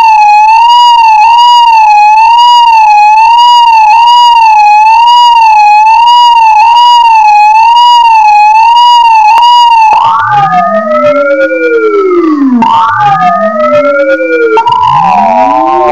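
Electronic tones from a signal generator: first a steady pitched tone near 900 Hz warbling up and down about twice a second, then, about ten seconds in, a series of sweeping tones that glide downward in several strands, starting over every two to three seconds.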